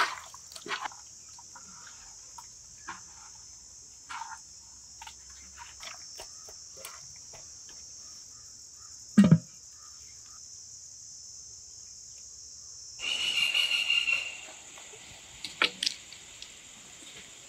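Crickets chirring steadily while hands turn spiced fish pieces in a clay pot, giving soft wet clicks and squelches, with one dull thump about nine seconds in. Near the end a small wood fire is tended, with a few sharp clicks and crackles.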